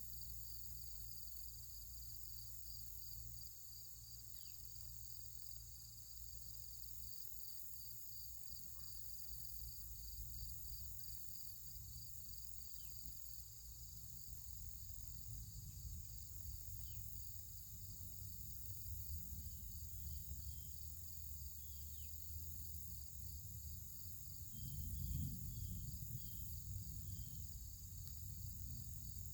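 Crickets chirping steadily in an even, pulsing rhythm over a high insect hiss. A few short chirps come and go, and a low rumble swells near the end.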